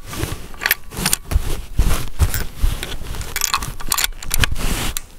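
Handling noise at the rifle: irregular metallic clicks, clinks and scrapes with dull low knocks, typical of working a bolt-action rifle and handling cartridges before the last shot.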